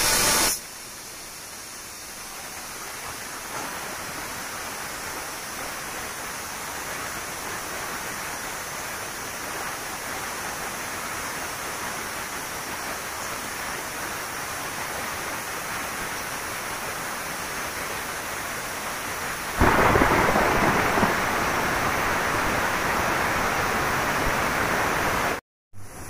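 Aluminium pressure cooker's whistle weight releasing steam: a steady hiss, then a much louder blast of steam for about six seconds near the end that cuts off abruptly. A brief loud burst comes at the very start.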